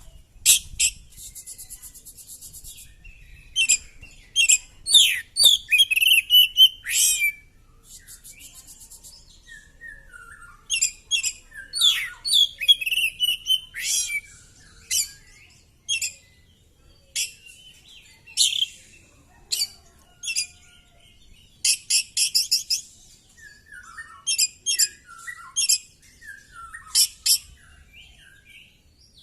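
Oriental magpie-robin singing hard: a long, varied song of sharp high notes, slurred whistles and rapid buzzy trills in quick phrases with short pauses between them.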